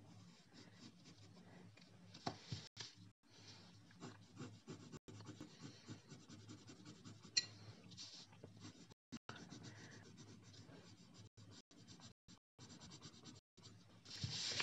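Faint scratching of a coloured pencil shading on paper, with a sharp click about seven seconds in and a louder rustle of paper near the end.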